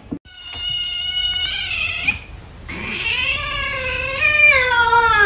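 A cat giving two long, drawn-out meows, the second longer and lower, sliding down in pitch at the end.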